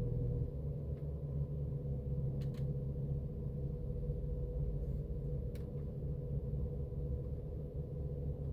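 BMW M4's AC compressor whining steadily, one constant tone over a low hum; the compressor is failing. A couple of faint ticks come in around the middle.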